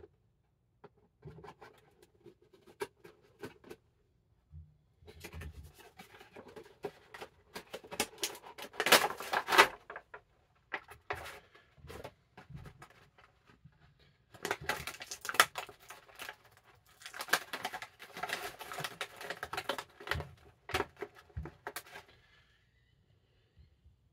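Action figure packaging being opened and handled by hand: plastic crinkling, rustling and tearing and cardboard scraping, in irregular bursts. The loudest stretch is around nine seconds in, with another long run in the second half.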